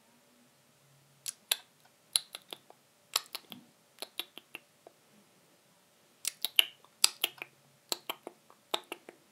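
Bat echolocation calls made audible by an Echo Meter Touch 2 bat detector: sharp, dry clicks in quick irregular clusters of several a second, with a short lull midway and the loudest clicks after it.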